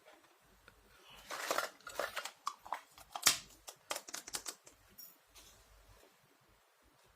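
Clicks, taps and rustles of small plastic toy kitchen pieces and packaging being handled, with one sharper click about three seconds in and a brief high chirp about five seconds in.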